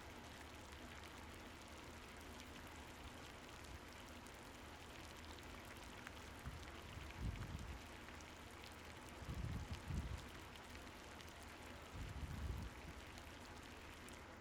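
Faint, steady crackling fizz from a cooking pot where water has just been added to a hot onion-tomato masala and is heating. A few soft, low bumps are heard about halfway through and again near the end.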